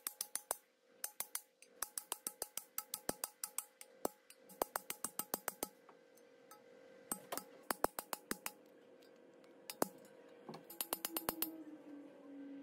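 Hammer tapping a cam-bearing installer bar, driving new cam bearings into the bores of a Ford 351 block: sharp metallic taps in quick runs of several a second, with short pauses between runs.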